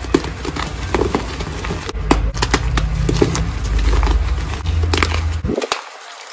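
Reformed gym chalk blocks crushed and crumbled between bare fingers: a dense run of dry crunches and crackles, briefly quieter near the end.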